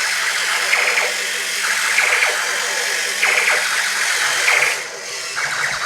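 Battery-powered toy fighting robot running, its small gear motors whirring with repeated short electronic sound-effect bursts. The sound dips briefly about five seconds in.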